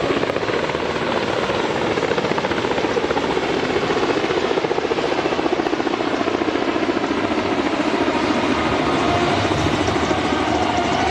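Helicopter rotor chopping steadily with fast, even blade beats.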